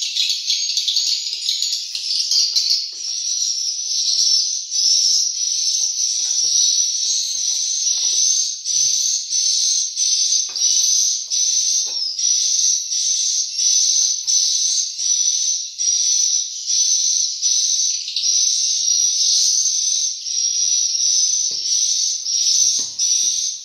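Recorded swiftlet lure call played through tweeter speakers, used to draw edible-nest swiftlets into the house: a dense high-pitched chirping that pulses about twice a second without a break. Faint clicks and knocks from handling sit underneath.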